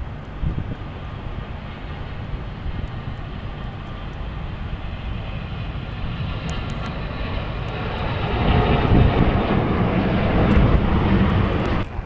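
Airliner engines rumbling as a plane passes close by, growing steadily louder over the second half and then cutting off abruptly near the end.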